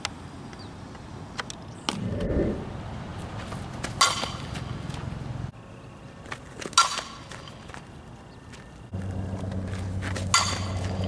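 Softball bat striking tossed balls three times, each a sharp ping with a short ring. A duller thump comes about two seconds in.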